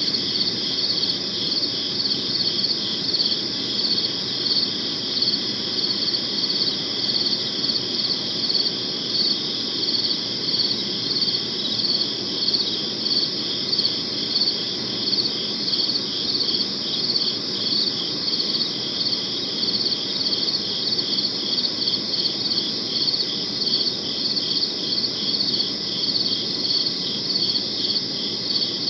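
Crickets chirping in a dense chorus, with high, evenly repeating pulsed chirps over a faint low background hum.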